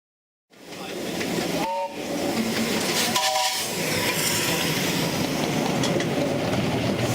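Steam hissing steadily from a miniature steam locomotive, with two brief faint high notes in the first few seconds.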